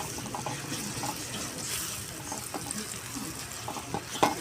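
Water running from a kitchen tap into a sink, with scattered light clinks and one sharp knock near the end.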